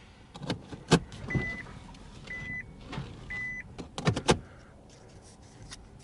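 Three short, high electronic beeps about a second apart, typical of a car's warning chime, mixed with sharp clicks and knocks of handling inside the car. A quick cluster of louder knocks comes about four seconds in.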